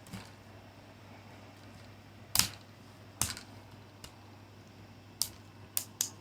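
Five sharp, short taps or clicks at irregular intervals. The loudest comes about two and a half seconds in, and three come in quick succession near the end.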